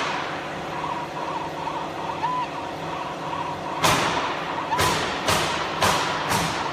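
A steady mechanical hum with faint short beeping tones, then from about four seconds in a series of sharp knocks or taps, roughly two a second.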